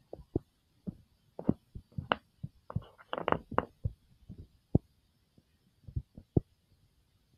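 Rolls of washi tape handled by hand: scattered light taps and knocks of the rolls against each other and the cutting mat, with a brief crinkling of clear plastic wrapping about three seconds in.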